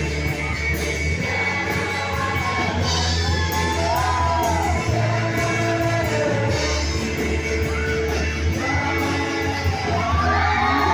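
A song with a singing voice over a bass line and a drum beat.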